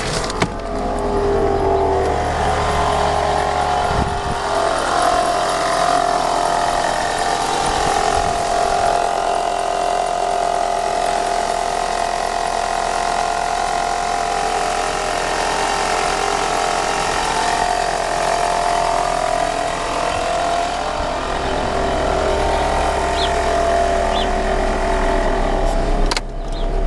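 Renault Symbol engine running at idle just after starting, with a steady whine and a scratching, rustling noise from the engine bay. It is not a knock but a light scrabbling, like mice scratching.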